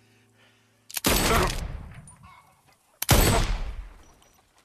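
Two loud gunshots about two seconds apart, each with a long echoing tail.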